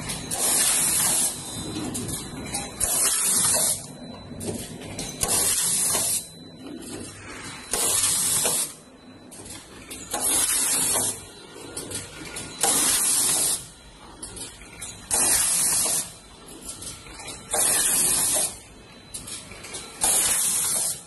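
Rotary zipper pouch packing machine running, with loud bursts of compressed-air hiss about every two and a half seconds, each lasting under a second, from its pneumatic air lines cycling. Quieter mechanical clatter runs between the bursts.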